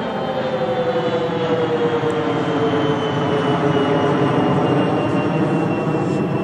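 Bombardier CRJ-200 regional jet passing overhead, the steady noise of its two rear-mounted General Electric CF34 turbofans with a whine that slides slowly down in pitch as the jet flies away.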